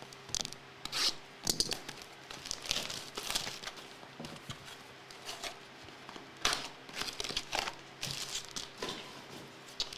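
Packaging crinkling and being torn open in short, irregular bursts, as a sealed trading-card box or pack is opened, with the loudest tear about six and a half seconds in.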